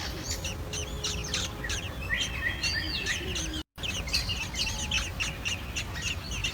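Small birds chirping in a dense run of quick, high calls over a low steady rumble, with a brief cut-out about two-thirds of the way through.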